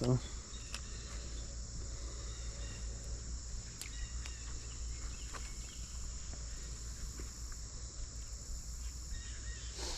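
Crickets chirring in a steady, high-pitched drone, over a low steady rumble, with a few faint ticks.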